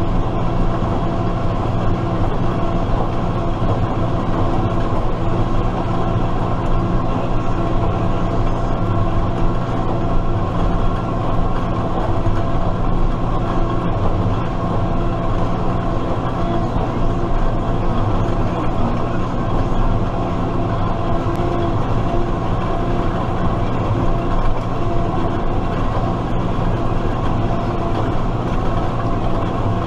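Case IH Maxxum MX100C tractor's diesel engine running loud and steady, its pitch holding even throughout.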